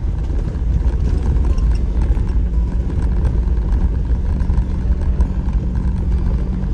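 Off-road vehicle driving a rough dirt trail: a steady low engine drone and rumble.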